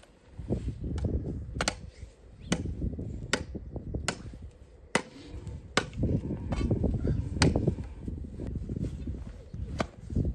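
Hand tools digging and scraping dry, earthy ground, with a sharp strike about every second over a steady scraping and rustling of soil.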